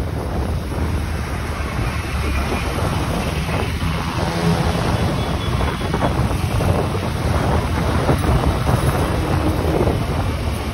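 Wind buffeting the microphone over the steady rumble of a moving vehicle.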